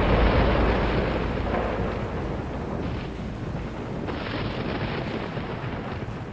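Thunder sound effect: a long noisy rumble, loudest at the start and slowly dying away, over a steady hiss.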